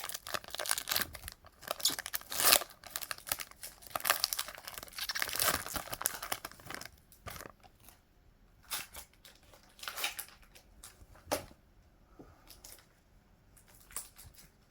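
A foil Pokémon card booster pack being torn open, its wrapper crinkling for the first several seconds, then sparser rustles and clicks as it is handled.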